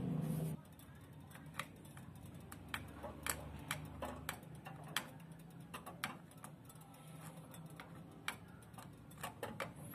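A low hum that cuts off about half a second in, then irregular light metallic ticks and clicks, one or two a second, around a power-drill armature sitting in a wire rack on an electric coil hot plate.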